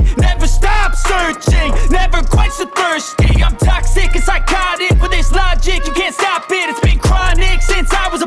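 Hip hop music with a heavy bass beat and a rapped vocal line.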